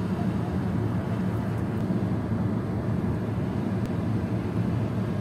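Steady low background rumble with a hum, unchanging throughout.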